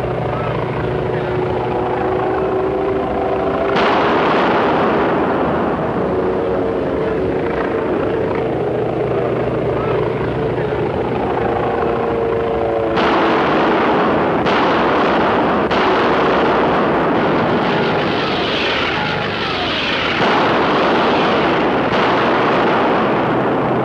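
Propeller aircraft engines droning at a steady pitch, overlaid by a louder rushing roar that cuts in abruptly about four seconds in and again at about thirteen seconds.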